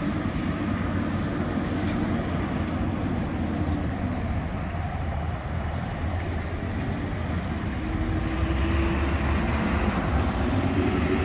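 Engine and tyre noise of vehicles driving slowly past one after another. It grows louder about eight seconds in as a fire company pickup truck goes by close.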